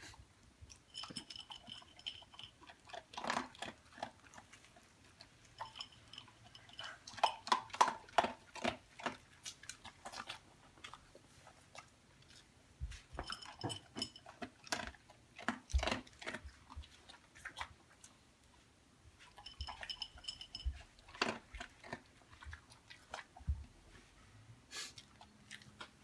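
A pet chewing and smacking at its food: irregular wet clicks and crunches, in clusters with short pauses. A faint high tone comes and goes briefly four times.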